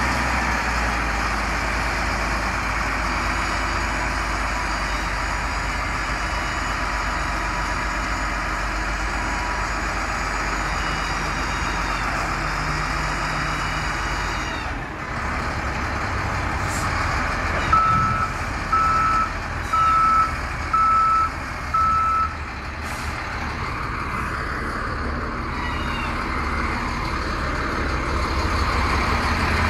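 Diesel engine of a SHANTUI L55-B5 wheel loader running as the machine moves on a lowboy trailer. A little past halfway, a reverse alarm beeps five times, about a second apart.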